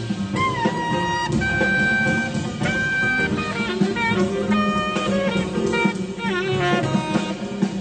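Jazz quartet playing: tenor saxophone carrying the melody in held notes with a few sliding, bent pitches, over piano, double bass and drums.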